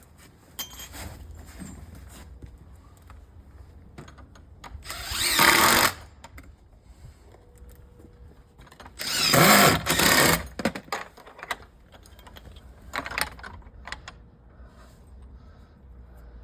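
Cordless drill driving screws into timber gate hardware: two runs of about a second each, the second a little longer, then a short run a few seconds later, with small handling clicks between.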